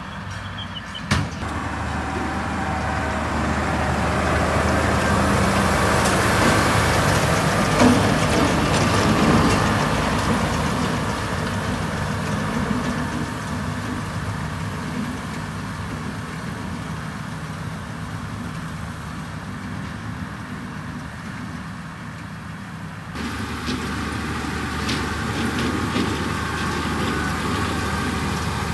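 Massey Ferguson 7616 Dyna 6 tractor's six-cylinder diesel engine running steadily under load while pulling a Claas Variant 480 RC round baler that is picking up and rolling hay. The sound grows louder as the rig passes close, about six to ten seconds in. There is a sharp knock about a second in and an abrupt change to a closer, steadier sound later on.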